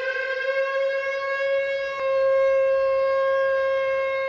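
Air-raid siren holding one steady tone after its wind-up, stepping up in loudness about two seconds in.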